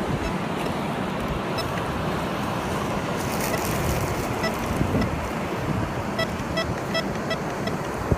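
Steady surf and wind noise with a series of short, high beeps from a Bounty Hunter Tracker IV metal detector swept over a buried target. The signal is faint and becomes more frequent in the second half.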